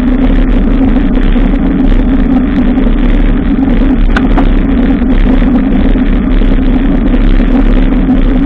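Loud, steady rumbling riding noise from a moving bicycle, wind and road noise on the camera's microphone, with a brief thin tone a little after four seconds in.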